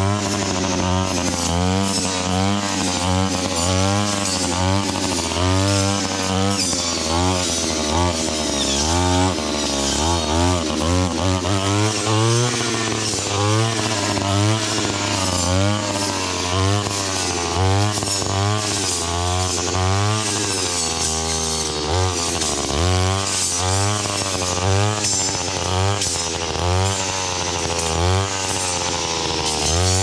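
Small engine of a handheld power tool running under load, its pitch rising and falling again and again as it is revved and bogged down.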